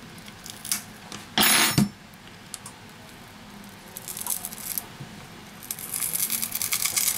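Hands prying a glued lithium-ion battery out of a smartphone frame: scattered clicks and handling noise, one loud brief rustle about a second and a half in, then a dense run of crackling near the end as the battery peels off its adhesive.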